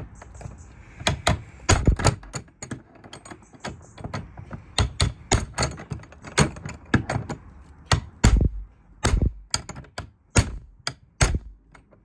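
Steel crowbar repeatedly whacking a laminated steel padlock on a metal hasp on a wooden shed door. The result is an irregular series of sharp metal clanks, the lock holding under the blows.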